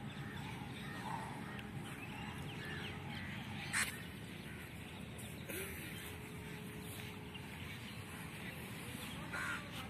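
Outdoor park background: a steady low hum with faint, scattered bird calls, and one short sharp sound about four seconds in.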